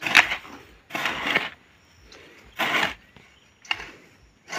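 Hoe blade chopping and scraping through soil while weeding between sweet potato plants: four strokes, roughly a second apart.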